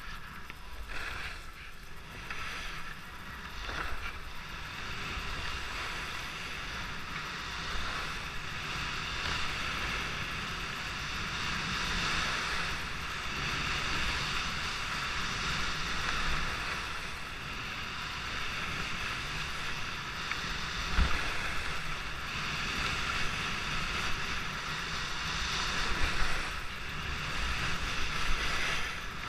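Skis running fast over groomed corduroy snow, giving a steady hiss, with wind buffeting the microphone as a low rumble. There are a few short thumps in the second half.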